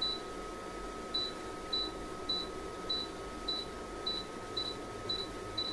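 Touch-panel keys of a Sonali IRC-2K infrared cooktop beeping at each tap: about ten short, high beeps, one roughly every half second, as the function key is pressed over and over to step through the cooking modes. A faint steady high tone runs underneath.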